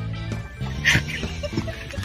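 Background music with a steady bass line, and a short sharp sound about a second in.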